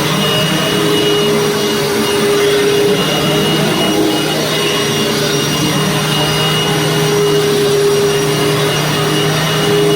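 Hoover Fold Away Wide Path U5175-900 upright vacuum cleaner running steadily: an even motor hum with a faint high whine.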